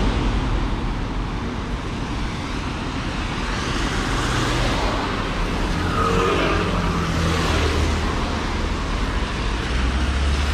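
Road traffic on a wet street: a steady hiss of tyres on wet asphalt with a low engine hum that grows louder about six seconds in.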